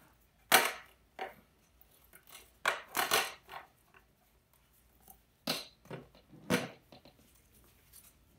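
Hard plastic clacking and knocking, about seven separate sharp hits with quiet between, as a Honda Grom's removed plastic rear tail assembly with its turn signals is handled and set down on a workbench.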